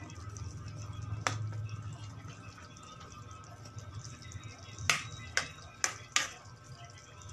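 A metal spatula knocks against a metal wok while stirring food, over a steady low hum. There is one sharp clack about a second in, then four quick clacks about five to six seconds in.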